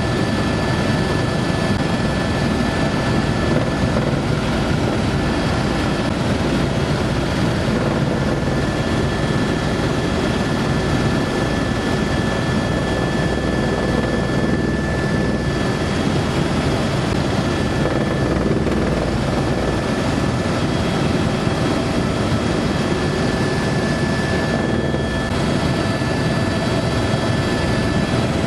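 Helicopter cabin noise in flight: the rotor and engine make a loud, steady drone with a thin, unchanging high whine on top, heard from inside the cabin.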